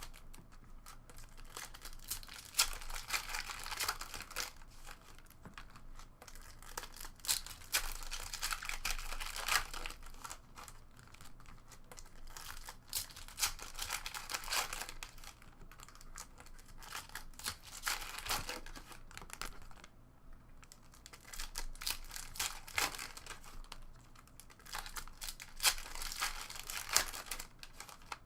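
Trading card packs and cards being handled: plastic wrappers crinkling and cards sliding and flicking against each other, an irregular run of small rustles and clicks.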